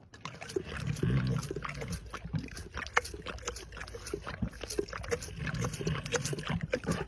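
Tiger sucking milk from a baby bottle: rapid, irregular wet smacking and sucking clicks, with louder low grunting sounds about a second in and again near six seconds.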